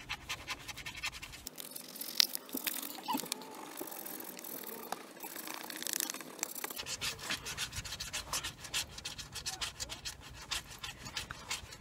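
Scratch-off lottery ticket being scratched: a long run of quick, rapid scraping strokes across the coated card, with a sharper click about two seconds in.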